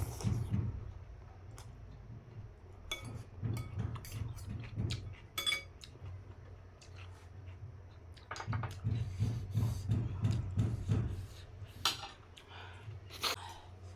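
Close-up eating sounds: a spoon clinking against a bowl several times, with bouts of rhythmic chewing of noodles and chicken between the clinks.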